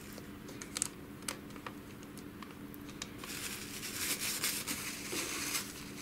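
Napkin crinkling and rubbing against a laser printer's fuser film sleeve as excess grease is wiped off. A few small clicks come early, and the rubbing grows denser and louder from about three seconds in.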